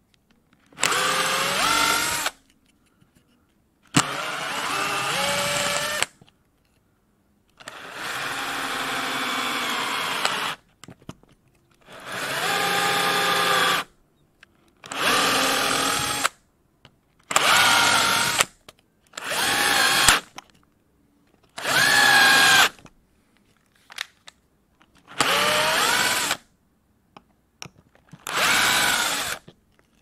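Power drill run in about ten short bursts of one to three seconds each, its motor whine starting and stopping with pauses of a second or two between.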